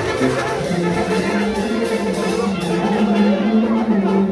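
Music playing, with held low notes and a melody above them, and a scatter of short high ticks in the first half.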